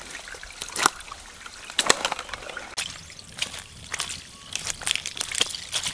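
Small spring-fed stream trickling and splashing down a wooded hillside, with irregular crunching footsteps through dry leaves and twigs.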